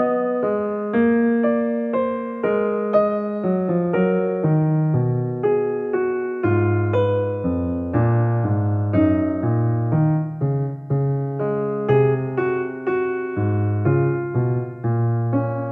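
Background music: a soft, gentle piano melody playing in a steady flow of sustained notes.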